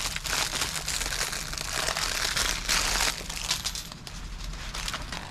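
Crinkling and rustling of a thin plastic parts bag being handled and opened with gloved hands, in an irregular crackly run that is busiest in the middle.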